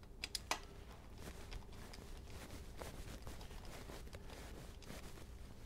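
Faint clicks and light metallic ticks of a socket being turned by hand on the primary cover bolts as they are snugged up, with a couple of sharper clicks about half a second in.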